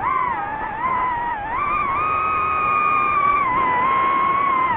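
DJI FPV drone's motors and propellers whining, several close tones together. The pitch jumps up as the throttle opens, climbs higher about two seconds in, and drops back a little after about three and a half seconds.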